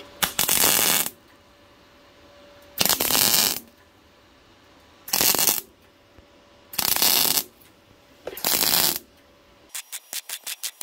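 MIG welder tack-welding a slit in thin sheet steel: five short bursts of arc crackle, each under a second, a couple of seconds apart. Near the end it switches to a rapid run of very short stitch-weld bursts, about five or six a second.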